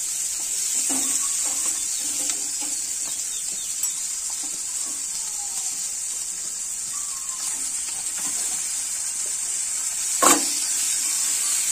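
Egg, tomato and onion sizzling steadily in a hot nonstick frying pan while a spatula stirs and boiled macaroni is tipped in, with one sharp clack near the end.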